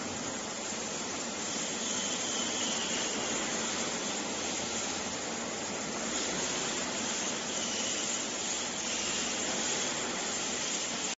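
Steady gas hiss of a long-nozzle butane lighter's flame held against a soundproof blanket sample.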